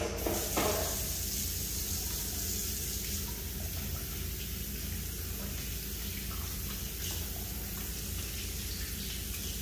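Water running steadily from a restroom sink faucet.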